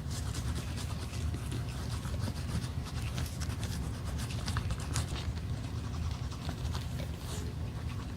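Rapid, irregular scratching and rubbing strokes, as in shoe-repair handwork, over a steady low hum.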